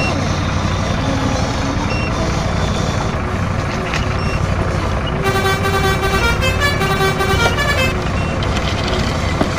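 Truck engine sound running steadily. A little past halfway, a horn sounds for about three seconds, playing several stepped notes.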